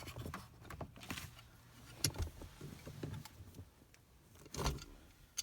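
Small metallic clicks and rattles of hand work on a manual gear shifter, as the spring clip holding the shift knob onto the lever is squeezed to free the knob. There is a sharper click about two seconds in and a louder knock near the end.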